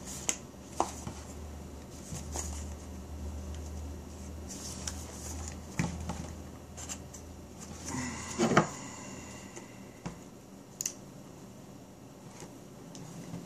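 Small cardboard knife box being handled and worked open: scattered light clicks, taps and rustles of card. About eight and a half seconds in there is a louder cluster of scraping with a short squeak. A low steady hum underneath stops about eight seconds in.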